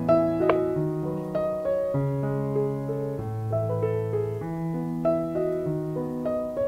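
Background piano music: a gentle melody over held bass notes that change about once a second.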